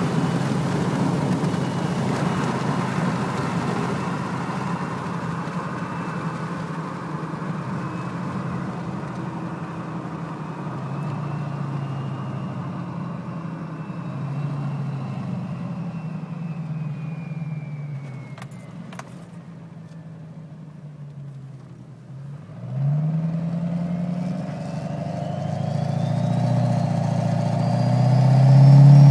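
Duramax diesel with a BorgWarner S366 turbo, driving. The turbo whistle slowly falls in pitch and fades as the engine eases off, then about three-quarters through the engine comes back on throttle and the whistle rises steadily in pitch as the turbo spools up, growing louder.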